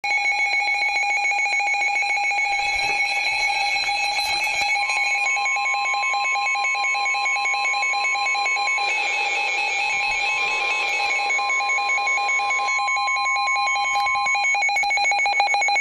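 NOAA Weather Radio alert tones: a rapid warbling of high electronic tones throughout, with a steady warning alarm tone coming in about five seconds in, briefly broken near the middle, and stopping about a second before the end. The tones announce a severe thunderstorm warning that is about to be read.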